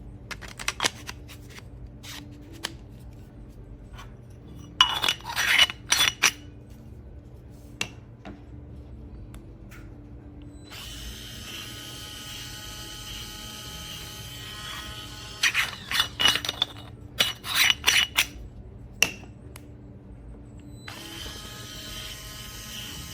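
Electric burr coffee grinder: sharp clicks and clatter from the machine being handled. About ten seconds in its motor starts running with a steady whine and more clattering over it. The motor stops briefly near the end and starts again.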